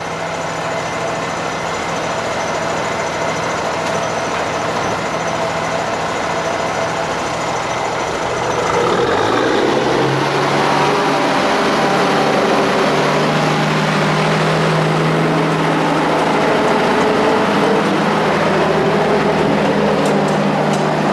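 Freightliner dump truck's Cummins diesel engine idling, then revving up about a third of the way in and running louder as the truck pulls forward and drives past.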